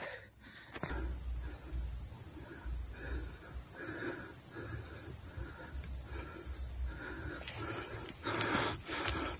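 Cicadas buzzing in the forest, a steady high-pitched drone that swells louder about a second in.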